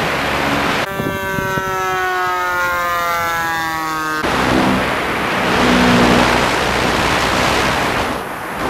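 Electric FMS P-51 Mustang model plane in flight: rushing wind noise and propeller drone on the onboard camera. For about three seconds in the middle it is heard from the ground instead, a clean motor-and-propeller whine whose pitch slowly falls as the plane passes.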